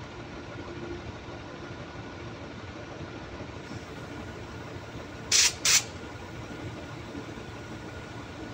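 Two short, loud hissing blasts of compressed air from a hand-held blow gun, a fraction of a second apart, about halfway through, blowing off diesel injector parts. A steady mechanical hum runs underneath.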